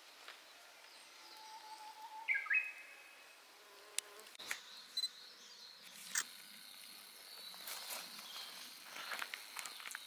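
Quiet garden ambience: a few short, falling bird chirps about two seconds in, then a steady, thin, high-pitched insect buzz from about halfway, with scattered clicks and rustling throughout.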